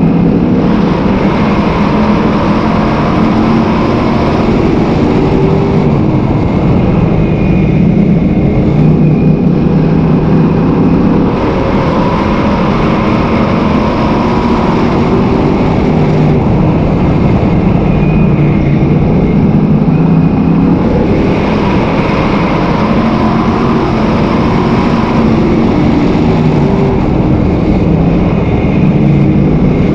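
Sportsman modified dirt-track race car's V8 engine at racing speed, heard from inside the cockpit, loud and rising and falling in pitch every few seconds as the throttle is lifted for the turns and reapplied down the straights, over steady wind and track noise.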